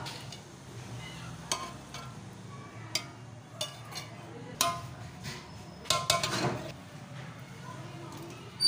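Metal spoon and slotted spatula clinking and scraping against a large metal cooking pot as masala chicken is spooned onto rice: several sharp clinks that ring briefly, with a quick cluster about six seconds in, over a steady low hum.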